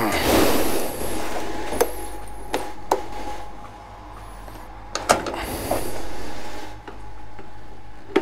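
Petrol pump dispensing fuel into a motorcycle tank: a steady pump hum under the flow noise, with several sharp clicks from handling the nozzle.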